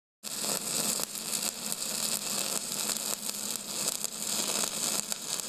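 AC TIG welding arc buzzing and crackling steadily with a harsh hiss, starting just after the beginning.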